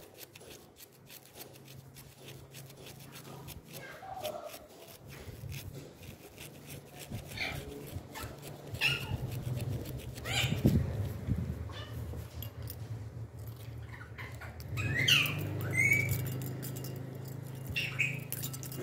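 Toothbrush scrubbing a gold ring in soapy water in a cut-glass bowl: scratchy bristle strokes and small clicks against the glass. A low hum comes and goes, and a few short high chirps sound about nine and fifteen seconds in.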